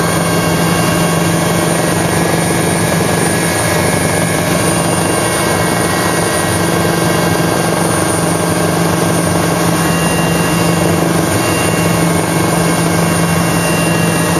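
Police helicopter in flight, heard from inside the cabin: a loud, steady drone of engine and rotor with a constant high whine, unchanging throughout.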